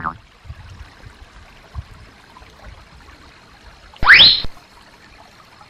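Shallow stream trickling over rocks, faint and steady. About four seconds in, a short, loud whistle-like sound effect sweeps quickly upward in pitch.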